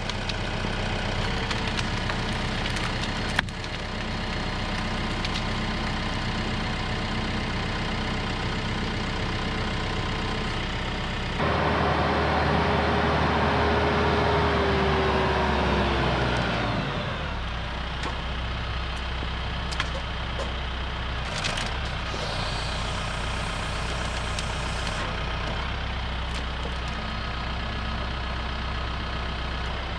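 TYM T654 tractor's diesel engine running steadily under loader work. Partway through it gets louder for several seconds, with a whine that falls in pitch as it eases back off.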